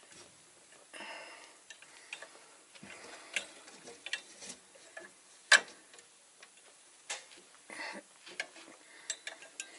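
Wrench on the belt tensioner bolt of a truck engine being worked in a cramped spot: scattered, irregular metal clicks and taps, the sharpest about five and a half seconds in, with a couple of soft rustles.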